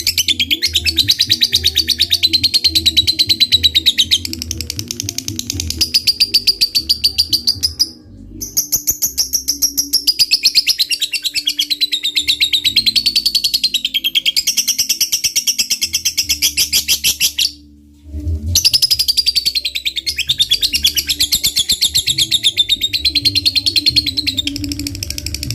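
Lovebird giving its long 'ngekek' chatter: a very fast run of sharp notes wavering up and down in pitch, in three long bouts split by two short pauses. Background music with a low beat plays underneath.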